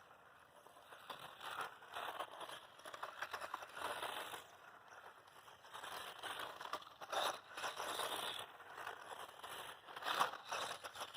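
Losi Mini-T 2.0 RC truck driving over dirt on knobby grip tires: gritty scraping and crackling of the tires on loose dirt, coming and going in surges.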